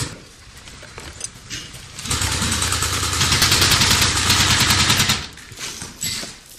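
Airsoft gun firing one long burst on full auto, a rapid, even rattle over a steady hum, starting about two seconds in and lasting about three seconds, followed by a few scattered clicks.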